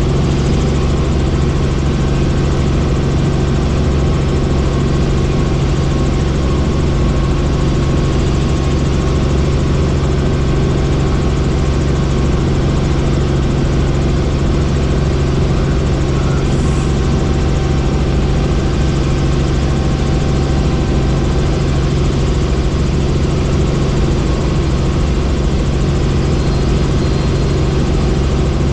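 Helicopter in flight: a steady, loud drone of rotor and turbine engine that holds at one level throughout.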